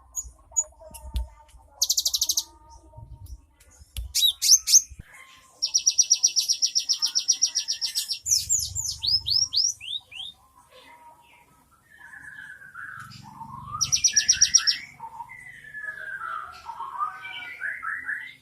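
Gelatik batu (cinereous tit) singing a song filled with mimicked phrases: loud, fast, even high trills, the longest lasting about two seconds, followed by lower sliding whistled notes in the second half.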